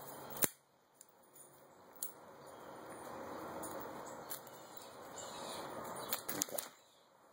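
A folding pocket knife clicks open sharply, then there is faint steady rustling and scraping as the knife and paracord are handled, with a few small clicks near the end.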